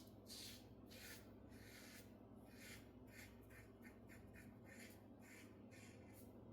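Faint scratchy strokes of a safety razor drawn over lathered stubble, a quick run of short strokes, a few a second, in places.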